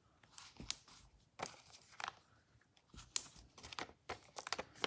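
Cardstock and paper being handled: irregular short rustles and crisp crinkles, the sharpest about three seconds in.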